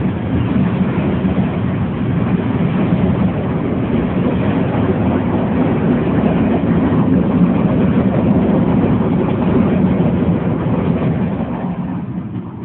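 Freight train cars, including black tank cars, rolling past close by: a steady, loud rumble of wheels on rail that dies down near the end.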